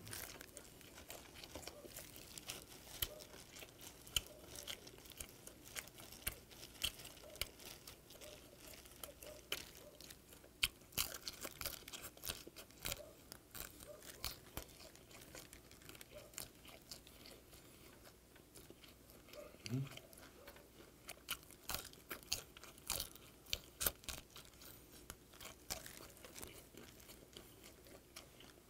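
Close-up chewing of salt-grilled whiteleg shrimp: a dense run of small sharp crunches and clicks as the shrimp is bitten and chewed, with a short low hum from the eater about two-thirds of the way in.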